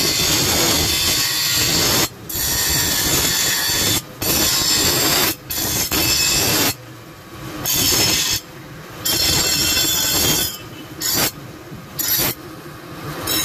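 Steel cleaver blank, cut from an old leaf spring, ground on a spinning grinding wheel to shape the handle: a harsh, loud grinding screech that breaks off and starts again several times as the piece is lifted from the wheel and pressed back.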